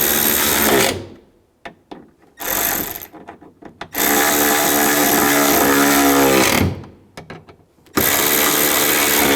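Cordless power driver running in four bursts as it drives in the T30 bolts that hold a door latch: about a second at the start, a short burst near three seconds, a longer run of about two and a half seconds that slows at its end, and another over a second near the end.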